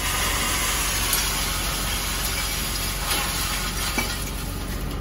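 Sennebogen scrap-handling machine's engine and hydraulics running steadily as its orange-peel grapple digs into and lifts a load of steel scrap, with a few faint metal clinks.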